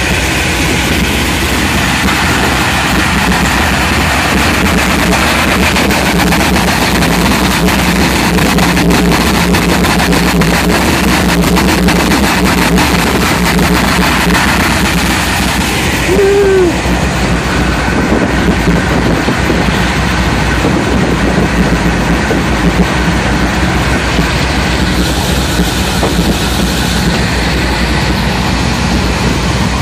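Triple 557 ci big-block Chevy V8 engines of a Fountain powerboat running steadily, a loud, even rumble with no revving.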